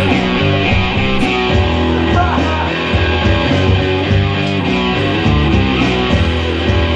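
Rock band playing together: electric guitar, bass guitar and drum kit.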